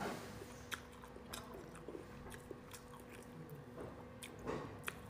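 Close-miked chewing of soft cooked starfish roe, with sharp wet mouth clicks scattered through and a louder smack about four and a half seconds in.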